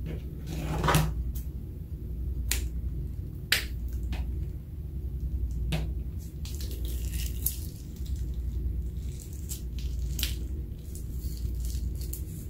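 Glossy slime being squeezed out of a plastic piping bag into a glass dish: wet squelches and a handful of sharp clicky pops spread through, over a steady low hum.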